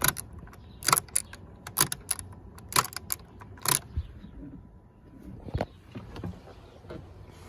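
Keys jangling on the key ring in a rhythm of about one sharp jingle a second as the ignition key of a 2001 Ford Expedition is worked, then a few softer clicks; no engine cranks, as the dead battery leaves no power at the switch.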